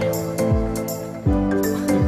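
Background music: sustained chords over a deep kick drum beat, with light high ticks on top.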